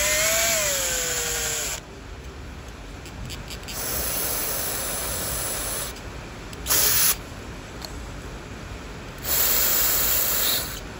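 Drill turning a counterbore tool in the aluminium EJ25 engine block, its pitch rising and then falling as it winds down about two seconds in, then running again around four seconds. Then an aerosol can sprays through its straw into the hole in two bursts, a short one near seven seconds and a longer one near the end.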